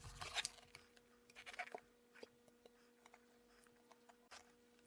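Near silence: faint scattered clicks and light scratching, as of small things being handled, busiest in the first two seconds, over a steady low hum.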